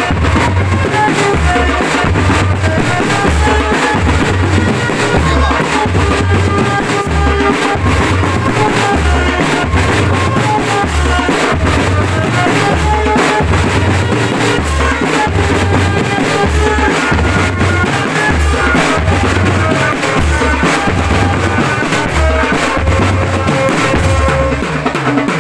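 Drum band playing: bass drums pound a steady repeated beat with snare rolls, under a melody line of sustained notes.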